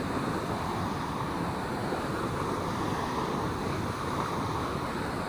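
Water rushing steadily through a barrage's sluice gate, a constant even churn of turbulent water.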